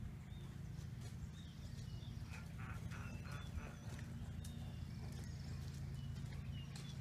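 Outdoor field ambience: a steady low hum, with small birds chirping at intervals and a short run of calls about two and a half seconds in.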